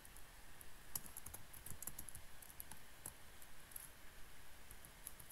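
Computer keyboard being typed on: faint, irregular keystroke clicks as a terminal command is entered.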